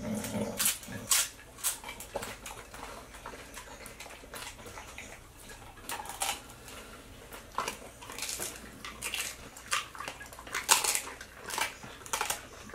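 Pit bull eating tacos from a plate on the floor: irregular wet chewing and lip-smacking clicks.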